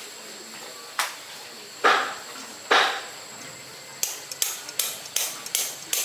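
Hammer blows during a motorbike repair: three spaced strikes, then a quicker run of about six lighter taps.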